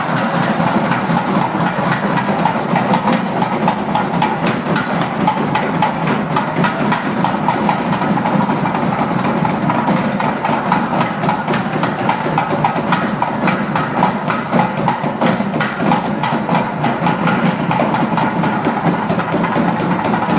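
Temple festival drumming, loud and fast, with dense, rapid, evenly repeating strokes.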